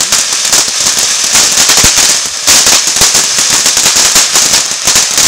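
Ground fountain firework spraying sparks: a loud, continuous crackling hiss made of many rapid small pops.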